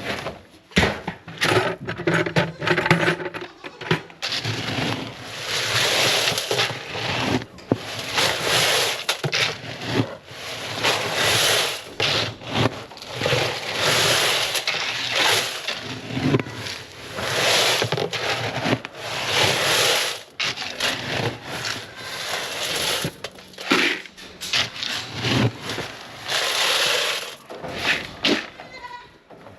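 Repeated rough scraping strokes, roughly one every one to two seconds, uneven in length and loudness.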